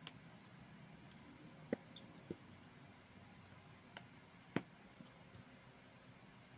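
Faint, sparse clicks and taps of a small precision screwdriver on the tiny screws of a smartphone's midframe as they are backed out one by one, about six clicks in all, the loudest about four and a half seconds in.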